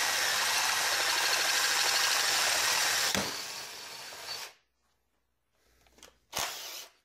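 Handheld power drill boring the centre hole through a thin aluminium plate clamped in a vise: steady drilling for about three seconds, a lighter stretch, then the drill stops about four and a half seconds in. A short noise follows near the end.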